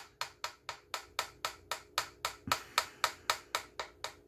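Light, sharp clicks in a steady, even rhythm of about four a second, over a faint steady hum.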